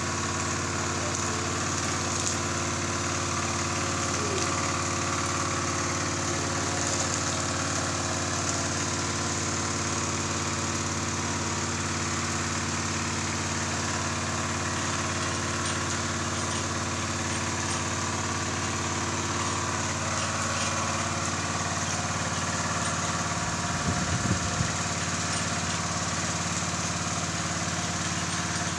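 Small engine-driven water pump running steadily at an even speed, pushing water through the hose down the hand-turned borehole drill pipe. A brief clatter of metal about three-quarters of the way through.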